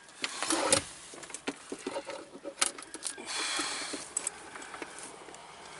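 A new battery being shifted and pressed by hand into its compartment under the floor of a 2013 Smart Car: scattered knocks, clicks and scraping, loudest in the first second.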